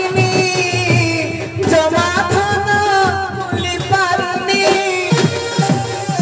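Live folk music: a voice singing long, wavering notes over fast drumming on double-headed barrel drums.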